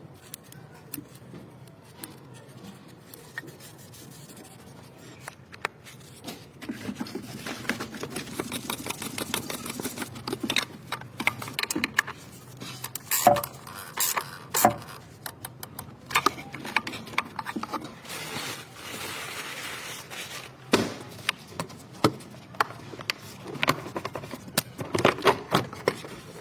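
Hand work on car parts: scattered clicks, knocks and scraping of tools and parts being handled, with two stretches of steadier rustling noise, one early and one past the middle.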